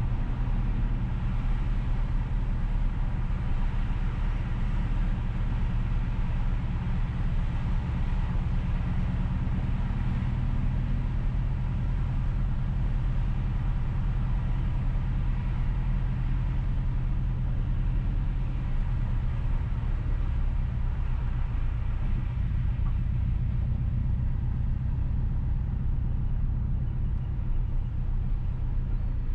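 Steady low rumble of a car driving at an even pace: engine and road noise heard from the moving car.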